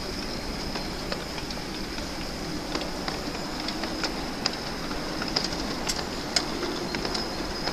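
Miniature live-steam locomotive running slowly on a ground-level track with wagons in tow: a steady hiss of steam, with irregular sharp clicks as the wheels pass over rail joints.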